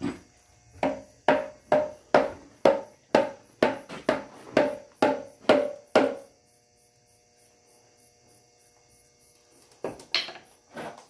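Hammer striking a steel pry tool wedged at the seam of an aluminum oil pan to break the pan loose from the engine block: about a dozen ringing metal blows, roughly two a second, then a pause and a few more blows near the end.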